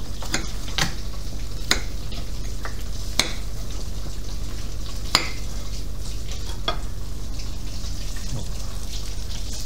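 Hot oil sizzling steadily in an electric deep fryer, while a knife cutting deep-fried battered pineapple clicks sharply against a ceramic plate several times at irregular intervals.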